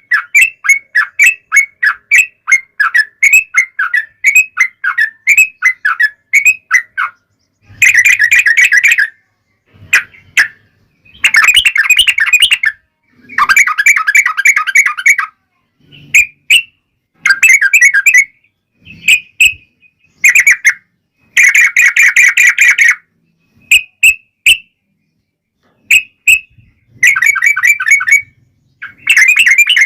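Yellow-vented bulbuls singing: a quick run of separate chirping notes for the first seven seconds or so, then repeated bursts of fast rolling chatter, each a second or two long, with short gaps between them.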